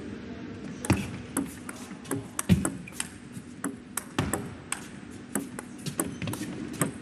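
Table tennis rally: the celluloid-type ball clicks sharply off the rubber bats and bounces on the table, hit after hit, starting about a second in.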